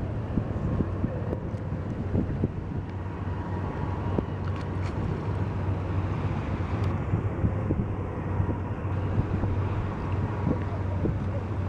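Wind buffeting the microphone over a steady low hum.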